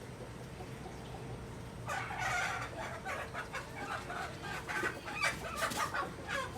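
A rapid run of short, sharp animal calls that starts about two seconds in and keeps going, one after another.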